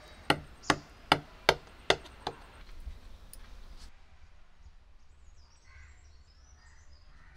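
A knife chopping through set kharvas pudding and striking the bottom of a metal pot: six sharp chops, about two and a half a second, stopping a little over two seconds in. Faint bird calls follow near the end.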